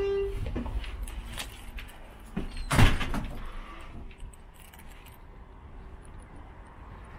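Rooftop access door: a squeal that stops just after the start, clicks and rattles of metal, and a loud bang about three seconds in as the door shuts. Then a soft open-air hiss of city noise.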